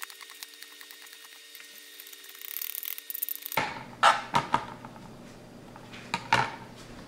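Kitchen knife shaving a block of white chocolate on a plastic cutting board: a fast run of small cutting ticks with a faint steady hum under it. After about three and a half seconds it changes to the knife scraping and knocking on the board as the shavings are pushed together, with several sharp knocks.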